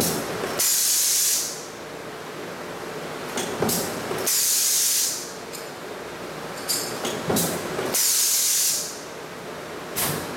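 Power press running a progressive stamping die that forms spring seats, cycling steadily about every three and a half seconds. Each stroke lands with a metal clank, followed about half a second later by roughly a second of loud compressed-air hiss: four clanks and three hisses.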